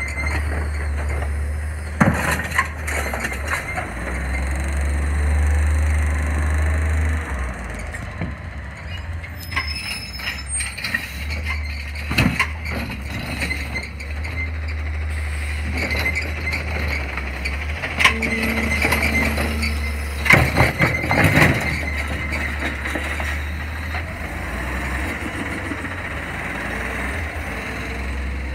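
CNG Autocar Xpeditor garbage truck with a Heil Rapid Rail automated side-loader at work: a steady low engine and hydraulic drone, with knocks and clatters as the arm dumps a cart. The loudest bangs come about two seconds in and again around twenty seconds in.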